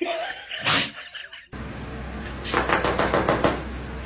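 A dog sneezes once, a short sharp burst, about a second in. Then, over a steady low hum, comes a quick run of sharp clicking taps lasting about a second.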